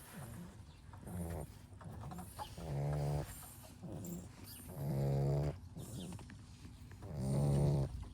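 Sleeping Labrador retriever puppies snoring: three loud, rough snores about two seconds apart, with softer breaths between them.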